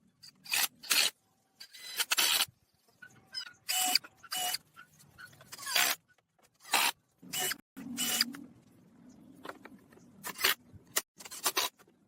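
A string of short, irregular scraping strokes on wood, each lasting well under a second, with brief quiet gaps between them.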